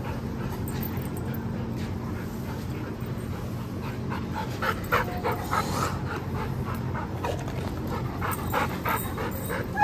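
Two dogs scuffling in a rough sparring bout, with short dog vocalisations coming in quick succession from about four seconds in, over a steady low hum. The German Shepherd is pressing to intimidate and pin the other dog rather than play.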